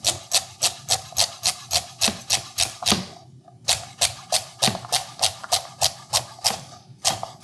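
Henckels Elan forged kitchen knife chopping celery on a cutting board: quick, crisp chops at about four a second, with a short break about three seconds in.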